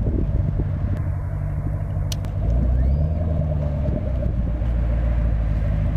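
Roush Stage 2 Mustang's V8 running at a low idle through its aftermarket exhaust, with one short light blip of the throttle about two and a half seconds in.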